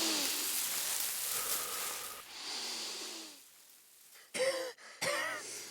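A person breathing in with a breathy wheeze, two long drawn breaths, then a few short voiced gasps near the end, as they build up to a sneeze.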